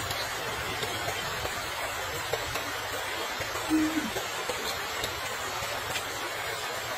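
A steady rushing hiss like running water, with a brief low hummed 'mm' that falls in pitch about four seconds in.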